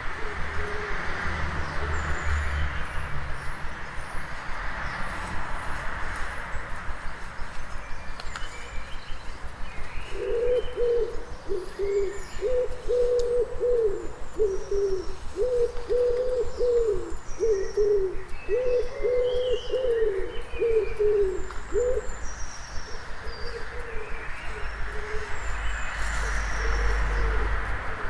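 Dawn chorus in a town: small songbirds chirping high throughout, with a pigeon cooing in a long run of repeated low phrases from about ten seconds in until about twenty-two seconds, over a steady low rumble of the town.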